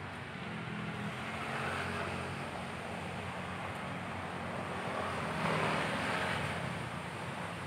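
A steady low engine drone, with a louder rushing swell about five and a half seconds in.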